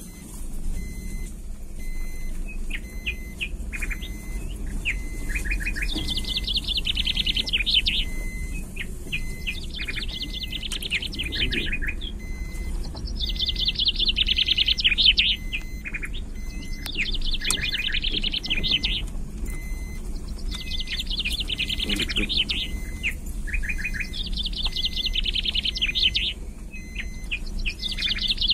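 A songbird singing a fast trilled phrase over and over, one roughly every four seconds, with short single chirps in between, over a steady low rumble.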